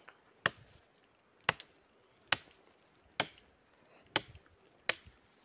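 Footsteps on a forest floor of dry sticks and leaf litter, each step a sharp crack, about one a second, six in all.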